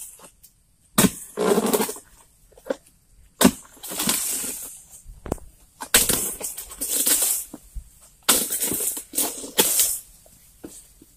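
A harvesting blade chops into a short oil palm's frond bases and fruit-bunch stalk while a ripe bunch is being cut. There are about six sharp hits, each followed by about a second of rustling palm fronds.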